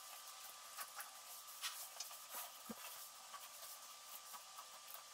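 Faint, irregular clicks and scrapes of a knife and hands working the skin off a wels catfish, with a soft thump about two and a half seconds in, over a steady faint hiss and thin hum.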